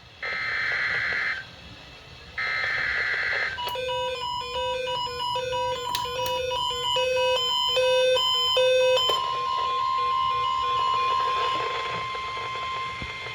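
Start of an Emergency Alert System tornado warning. Two roughly one-second buzzy SAME header data bursts come first. A steady single-pitch warning alert tone follows, with a pattern of quick beeps at several pitches layered over its first five seconds or so.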